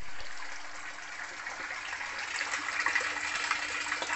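Pump-fed water running from a tap and pipe outlet and splashing into a plastic barrel of water, a steady rushing that starts suddenly and grows louder over the last couple of seconds.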